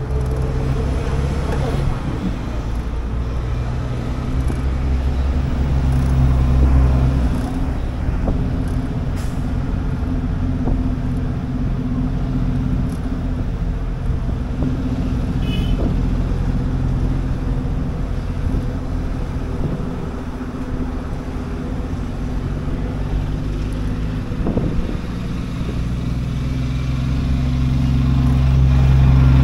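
City street traffic: a steady low hum of motor vehicle engines, buses and cars, over road noise. The engine rumble swells near the start and again near the end.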